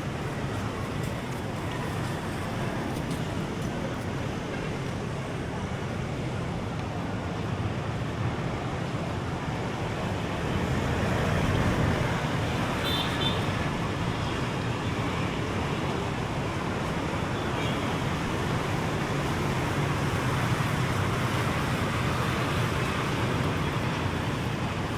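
Steady road traffic noise from passing vehicles, swelling a little near the middle as one passes closer.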